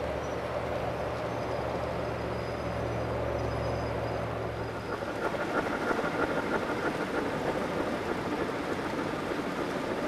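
G-scale model trains rolling on outdoor track. For about the first five seconds there is a steady low hum; then a louder, clattering run of small clicks as a model steam locomotive with tank cars comes close.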